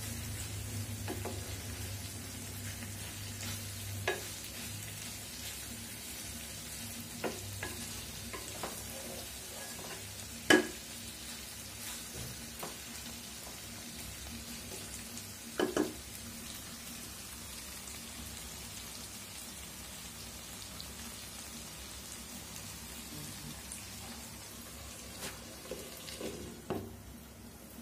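Chicken pieces sizzling in spice paste in a nonstick frying pan, browned without added water. A wooden spatula knocks against the pan now and then. Near the end a glass lid clinks as it is set on the pan.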